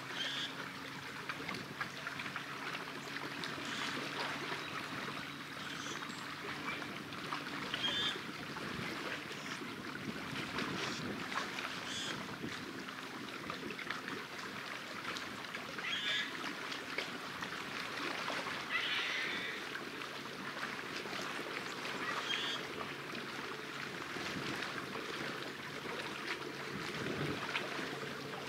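Small waves lapping and splashing against a rocky shoreline. Short bird calls come every few seconds, and a faint steady low hum runs underneath.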